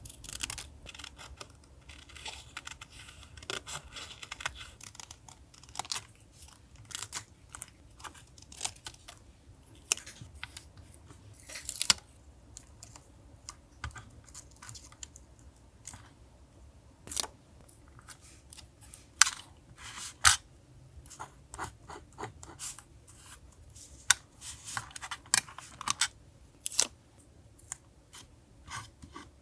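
Paper and sticker collage materials being handled close up: scattered sharp crackles and taps of paper, with longer stretches of rustling and rubbing.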